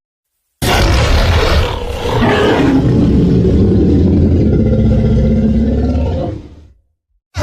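Monster roar sound effect: a long, deep, growling creature roar that starts suddenly about half a second in and fades out after about six seconds.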